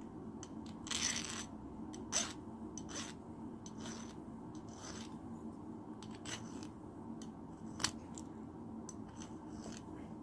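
Hand file rasping on the points of metal throwing spikes in short, irregular strokes, sharpening them to a point.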